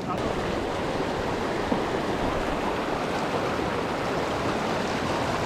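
Fast river rapids rushing over rocks: a steady wash of whitewater.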